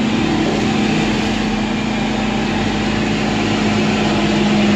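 Ford LT9000 truck's Caterpillar diesel engine running steadily with a low, even drone that grows slightly louder near the end.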